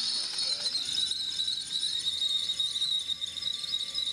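Cordless drill driving a 3D-printed spool winch through its plastic planetary gears, the spool winding rope. The drill motor and gear train give a steady whine.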